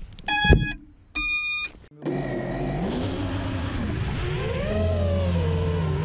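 FPV racing quadcopter with 2306 brushless motors: two short electronic beeps from the motors, the first with a knock, then the motors spin up and keep running, their whine rising and falling in pitch with the throttle.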